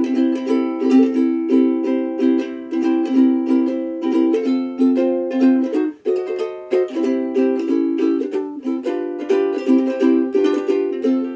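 Sumi UK-3M soprano ukulele, a Honduras mahogany replica of the Martin Style 3M, strummed in quick rhythmic chords, with a short break about six seconds in.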